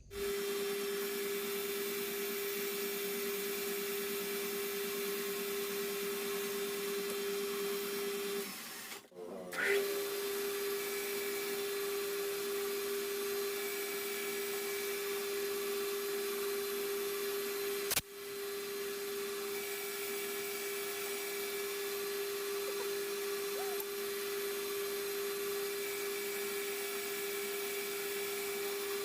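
Metal lathe running steadily with a constant whine over an even hiss. It breaks off briefly about nine seconds in, and there is a sharp click about halfway through.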